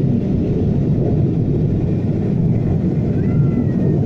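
Automatic car wash air dryer blowers running, a steady loud rush of air heard from inside the car. A faint, high, wavering tone comes in about three seconds in.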